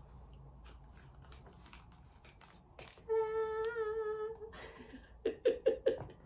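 A woman humming: one held note for about a second and a half, then four short hummed notes, over faint clicks of packaging being handled.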